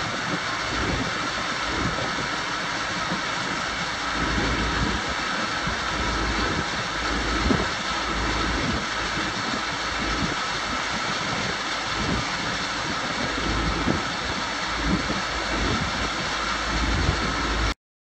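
Strong wind buffeting the microphone in gusts, over a steady mechanical whine. The sound cuts off suddenly near the end.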